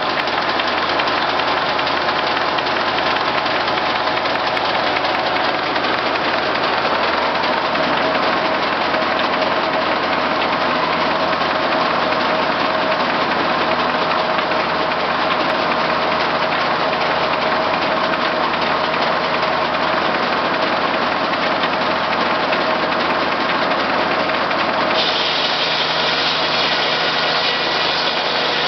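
J. A. Vance circular sawmill running steadily, driven by its Case six-cylinder power unit. Near the end a brighter, higher hiss joins the engine sound.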